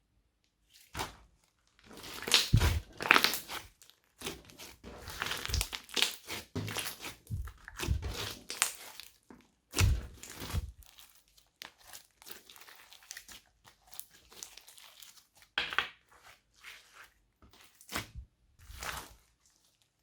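Hands squishing, stretching and pressing glossy slime mixed with add-ins. The noises come in irregular bursts with short pauses.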